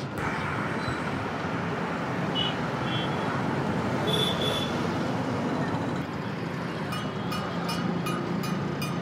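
Busy city road traffic: a steady hum of passing cars and scooters, with short horn toots about two and a half and four seconds in, and a run of quick clicks near the end.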